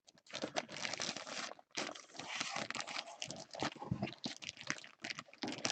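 Plastic packaging crinkling and rustling as it is handled, in a dense, irregular run of crackles.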